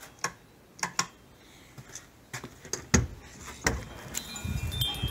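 A few clicks and knocks as a door is unlatched and opened, then gusting wind rushing on the microphone from about four seconds in, with wind chimes starting to ring. The wind is a storm wind with gusts of up to 50 mph.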